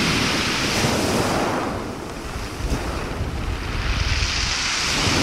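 North Sea waves breaking on a pebble beach and washing back, with wind buffeting the microphone. The surf eases about two seconds in and builds again toward the end.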